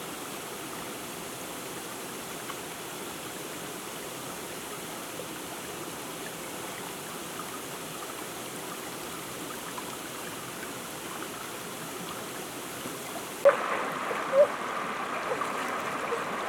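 Steady rush of flowing river water. Near the end the sound changes abruptly, and two short, sharp sounds stand out about a second apart.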